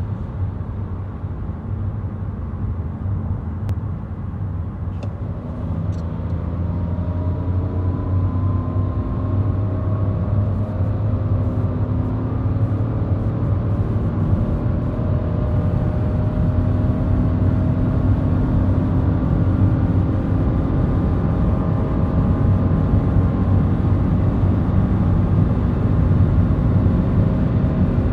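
Ford Kuga engine under full throttle after a kickdown into fourth gear, heard from inside the cabin, its note rising slowly and steadily as revs climb from about 3,000 to nearly 6,000 rpm. Road and wind noise build up with it, and the whole sound grows gradually louder.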